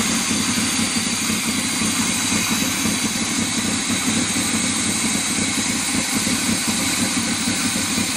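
454 big-block V8 of a 1987 K30 truck idling steadily at a very low idle, the alternator charging at about 14.5 volts. It runs rough and noisy, its muffler nearly fallen off and its air pumps only half connected.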